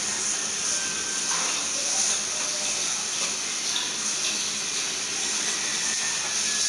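Steady hiss of classroom room noise with faint, indistinct voices underneath.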